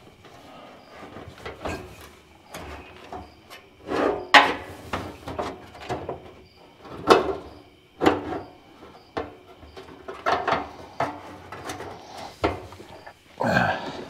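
Irregular knocks, clunks and scrapes of a metal fuel tank and its hanger straps and hardware being handled and pushed into place from underneath a car, with light rustling in between.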